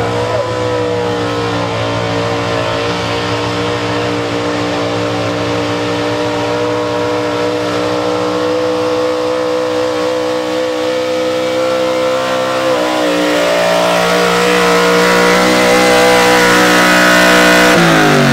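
Street-stock pickup's small-block V8 held wide open at high revs under load while dragging a pulling sled, the note steady apart from a brief dip about two-thirds through. It grows louder towards the end, then the revs fall away right at the end as the pull finishes.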